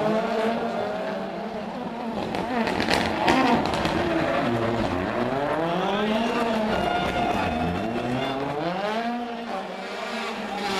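Rally car engines revving hard, their pitch sweeping up and down several times as the cars accelerate and lift off, with a few sharp cracks about three seconds in.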